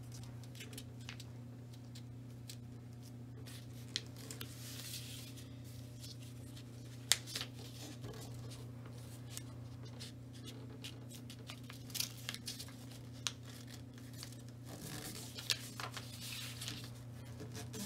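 A sheet of paper being folded and creased by hand: scattered rustles and sharp little ticks as fingers press and smooth the folds. A steady low hum runs underneath.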